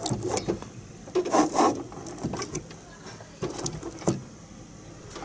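Metal key being pushed and worked into the keyway of a clear acrylic practice padlock packed with chewing gum: scattered clicks and scrapes from key, lock and fingers, busiest about a second and a half in, with a few sharp clicks near the end.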